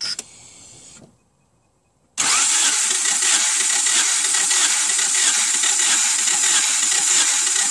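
Starter motor cranking a Subaru EJ203 flat-four without it firing, for a compression test, beginning about two seconds in as a loud, steady whir. This cylinder builds about 13 kg/cm², within normal limits.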